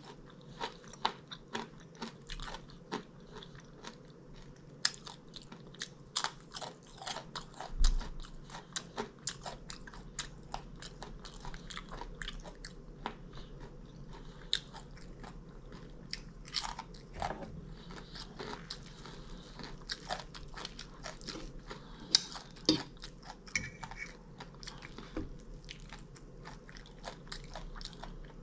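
Close-miked eating of breakfast food: irregular biting, crunching and chewing, with many short clicks and a louder crunch about eight seconds in.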